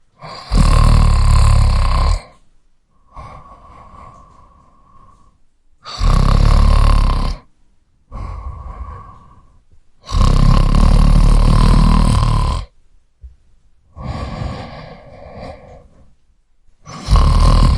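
A man snoring. Four loud snores, each one and a half to two and a half seconds long, come at intervals of four to six seconds, with quieter breaths between them.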